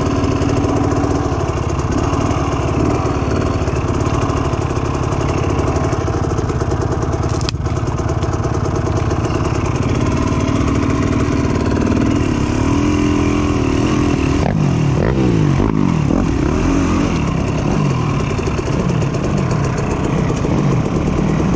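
Dirt bike engine running, revved up and down several times in quick succession in the second half.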